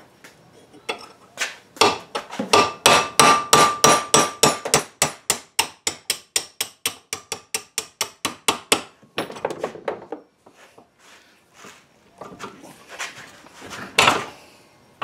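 Hammer striking a steel chisel in a rapid, steady series of about three to four blows a second, with a metallic ring, driving an old door-hinge pin out of a 1963 Chevy truck hinge held in a vise. The blows stop about ten seconds in, followed by a few scattered softer knocks.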